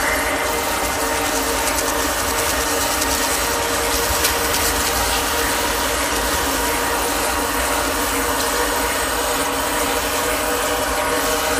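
Experimental drone track: a dense, steady wall of noise with layered sustained tones and a fine clicking, ratchet-like mechanical texture.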